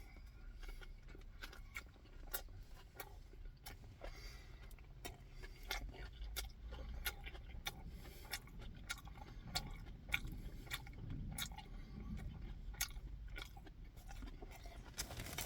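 Close-up chewing: irregular wet mouth clicks and smacks as food is chewed.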